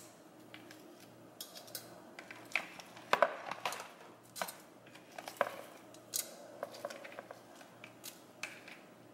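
Irregular light clicks and small clattering knocks of raw shell-on shrimp being handled and dropped into a perforated metal strainer basket over a plastic bowl, the loudest knock about three seconds in.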